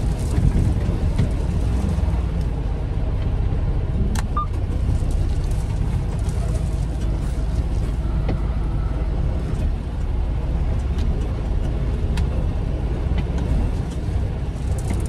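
Tractor-trailer engine and road noise heard from inside the cab while driving: a steady low rumble, with a single sharp click about four seconds in.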